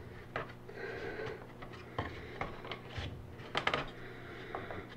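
Light wooden clicks, knocks and rubbing as a glued wooden divider is worked into its slots in a small wooden box by hand, with a quick cluster of sharp clicks about three and a half seconds in.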